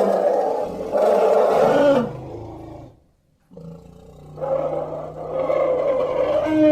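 Designed war-elephant creature roars: a long, rough roar that dies away about two to three seconds in, a brief silence, then a second roar that builds up again.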